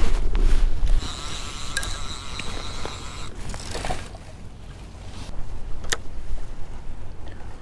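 Wind rumbling on the microphone for the first second, then a spinning fishing reel and its line being worked as a rig is cast. It makes a steady whirring for about two seconds, then a sharp click about six seconds in.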